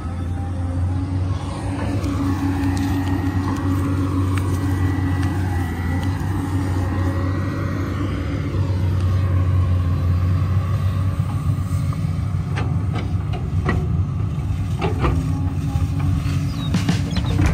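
Hydraulic excavator's diesel engine running steadily, with a higher whine that rises and falls from about two to nine seconds in as the hydraulics work. A few sharp clicks come near the end.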